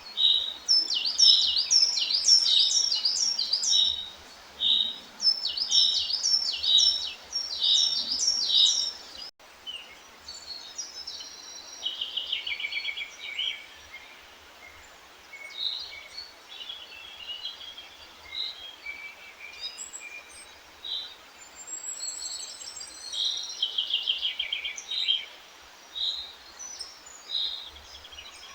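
Several songbirds singing, with fast series of short repeated notes and trills overlapping one another. The sound cuts out for an instant about nine seconds in.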